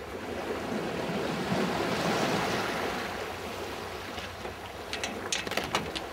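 Sea water washing past a sailboat's hull with light wind on the microphone, swelling about two seconds in, then a few sharp clicks near the end.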